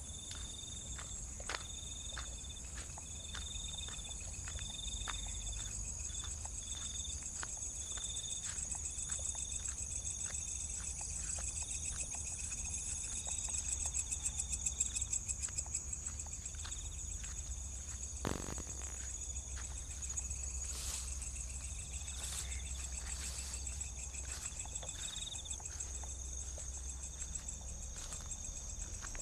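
Night insects outdoors: a steady high-pitched trilling chorus, with a lower cricket chirp pulsing about twice a second that drops out past the middle and returns later. Scattered sharp ticks and faint footsteps are heard over a low rumble.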